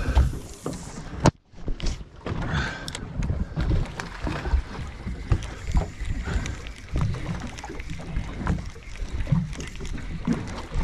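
On-deck noise of a small fishing boat at sea: low rumbling wind on the microphone and water against the hull, with scattered knocks and handling sounds. The sound briefly drops out about a second and a half in.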